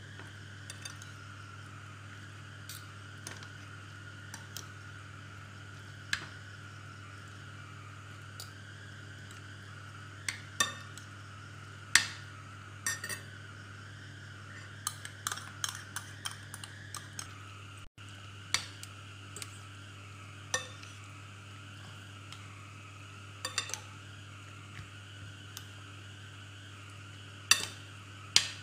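Metal spoon and fork tossing cuttlefish and water spinach in a glass bowl, clinking sharply and irregularly against the glass, over a steady low hum.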